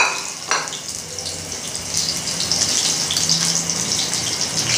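Chicken kababs sizzling in shallow oil on a flat iron tawa over high heat, a steady frying hiss that grows a little louder about two seconds in. Two short clicks come in the first second.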